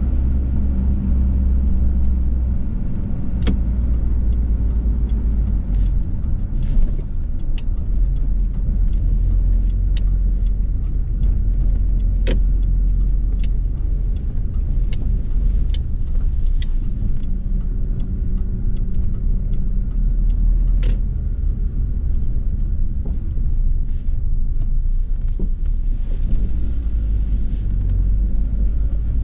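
Inside the cab of a 2010 Ford Ranger pickup with a 2.3-litre four-cylinder, driving on snowy roads: a steady low engine and road rumble, with occasional sharp ticks.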